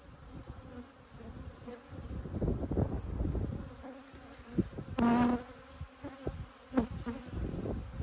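Honey bees buzzing around an opened hive as its frames are worked loose and lifted, with a few knocks of the hive tool against the wooden frames. One bee buzzes loudly close past the microphone about five seconds in. The colony is agitated and testy, which the beekeeper judges does not sound like a queenless hive.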